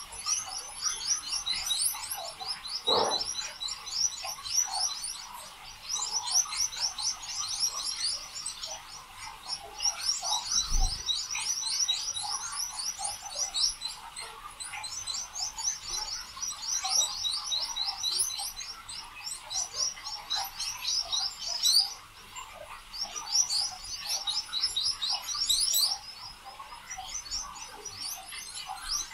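Small birds chirping: bouts of rapid, high, falling notes, each bout lasting a few seconds, repeating with short gaps between.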